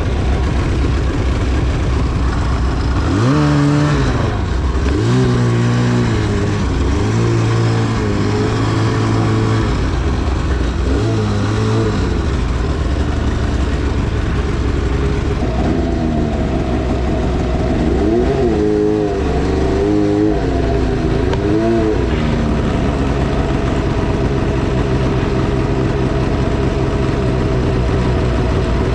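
2010 Arctic Cat CFR 1000's two-stroke engine running at low speed with repeated throttle blips. The revs rise and fall several times, with steadier stretches in between.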